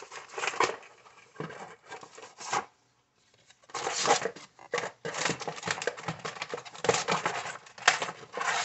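Hands handling a cardboard subscription box and its contents: paper cards and plastic-packaged items rustling, sliding and scraping, with cards set down on a tabletop. The noise comes in irregular bursts, with a short pause about three seconds in.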